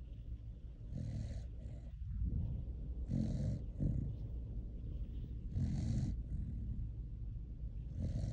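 A dog in deep sleep snoring, four snoring breaths about two seconds apart.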